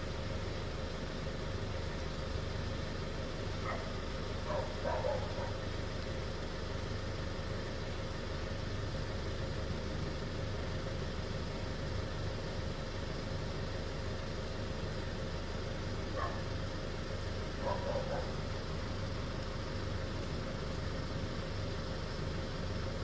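Steady low rumble of an idling engine, with two faint short sounds about five seconds in and again near the eighteen-second mark.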